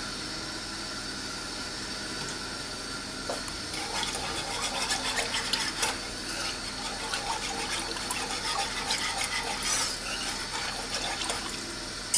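Cream and chicken juices simmering and bubbling in a small saucepan, then from about four seconds in a wire whisk beating the sauce: quick, repeated sloshing strokes with light clinks of the whisk against the pan.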